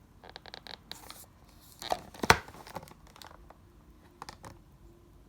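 Packaging being handled during an unboxing: crinkling and tearing with scattered small clicks, and one sharp knock a little over two seconds in.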